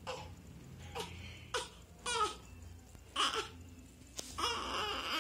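Newborn baby crying: a string of short wails, then a longer, stronger cry near the end.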